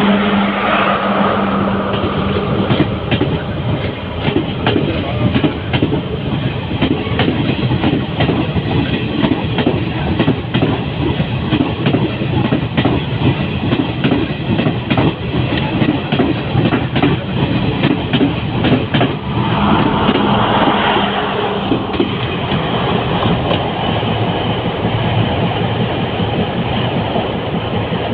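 Sri Lanka Railways Class S12 diesel multiple unit running past, its wheels clattering rhythmically over the rail joints. A steady engine drone fades after about three seconds, and a second drone comes and goes about twenty seconds in.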